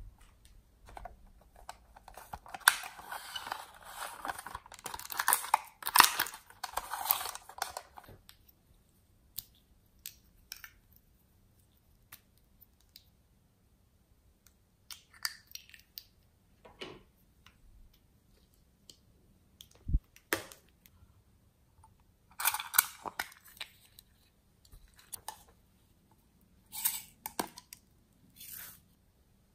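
Hands handling small plastic containers and trinkets over a bowl of slime: scattered clicks, taps and crinkles with quiet gaps between. A stretch of dense crackling begins about three seconds in and lasts about five seconds.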